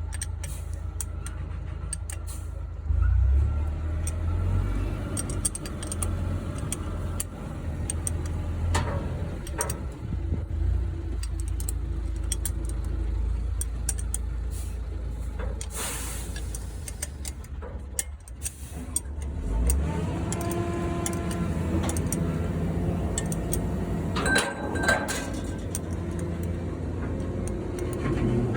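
Diesel truck engine running with a steady low rumble, which grows louder about three seconds in. Scattered sharp clicks and knocks sound over it.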